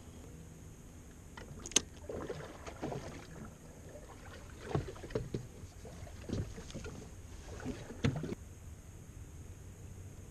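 Knocks and clatters of fishing gear handled against a small skiff's bench and hull: a sharp click about two seconds in, a scatter of thumps through the middle, and a loud knock near the end.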